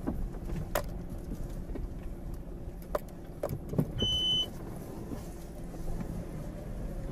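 Cabin sound of a Suzuki Celerio rolling slowly over a rocky track: a steady low hum from the small engine and tyres, with occasional knocks and rattles as the car jolts. A short electronic beep sounds about four seconds in.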